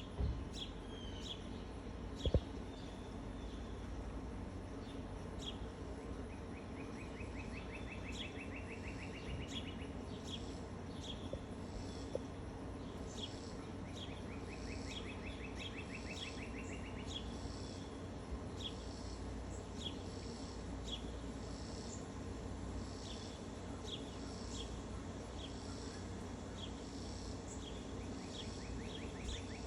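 Several birds calling together: short high chirps repeating about twice a second, and three times a rising, quickening trill lasting about three seconds, over a steady low rumble. A single sharp knock about two seconds in.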